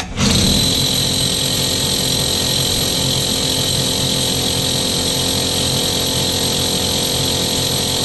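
Rotary hammer drill with a core bit boring into a wall. It starts abruptly and then runs steadily at full speed.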